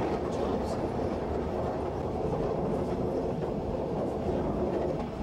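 Passenger train running, heard from inside a compartment: a steady rumble of the wheels on the rails.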